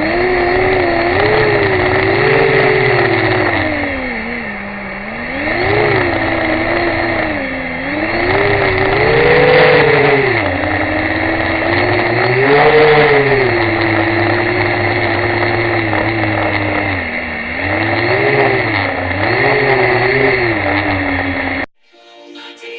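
Motors of a HappyModel Mantis 85 micro FPV quadcopter whining in flight, the pitch repeatedly rising and falling as the throttle is worked. The sound cuts off suddenly about a second before the end.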